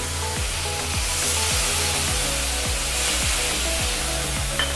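Wet spice paste sizzling hard in hot oil in a kadai, throwing up steam. Background music with a steady beat plays over it.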